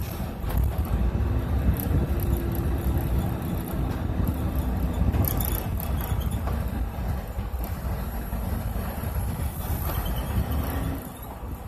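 Bus engine and road noise heard from inside the driver's cab while driving: a steady low rumble. It eases off about a second before the end as the bus slows behind traffic.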